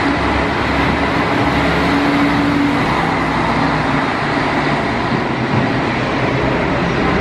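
Kashima Rinkai Railway 6000 series diesel railcars pulling out and passing close by: diesel engines running and wheels rolling on the rails, a loud steady rumble. The engine hum drops lower about three seconds in as the cars go by.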